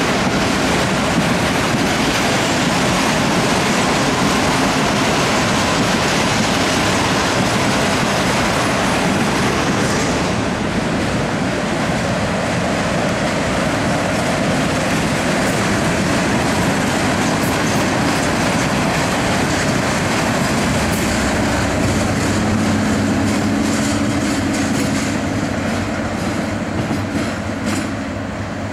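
Loaded tank wagons of a freight train rolling past, wheels rumbling and clattering on the rails. In the last few seconds a steady low diesel engine hum joins in, from the SM42 locomotive at the rear of the train as it draws closer.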